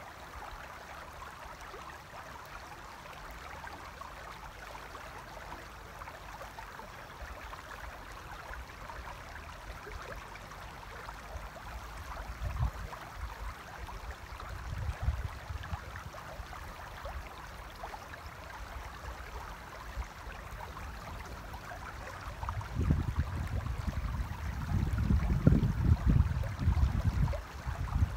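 Shallow river water flowing over stones with a steady rushing. Bursts of low rumble come twice about halfway through, then run strongly through the last five seconds.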